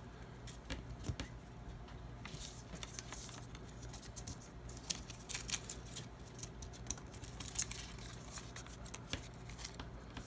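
Slips of paper being handled at a table: a scattered series of small crisp clicks and rustles, with a faint steady hum underneath.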